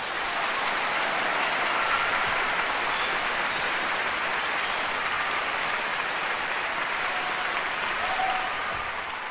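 Concert-hall audience applauding, steady, then fading out near the end.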